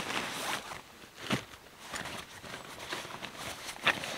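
Camping gear being handled: scattered rustles and a few light knocks, the sharpest about a second in and again near the end.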